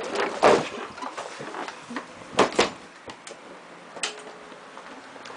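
A door being moved and shut indoors: a few short knocks and rattles.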